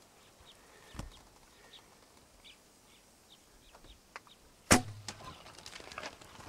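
A traditional recurve bow shot at a warthog: one loud, sharp snap of the string and arrow about three-quarters of the way through, with a short low thud after it. A warthog's hooves then scramble off across the sand, with faint bird chirps earlier.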